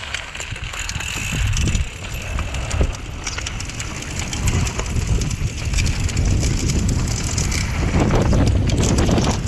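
Mountain bike riding fast down a dry dirt and gravel trail: wind buffeting the microphone over tyres rolling on loose dirt, with frequent clicks and rattles of the bike over rough ground, louder in the second half.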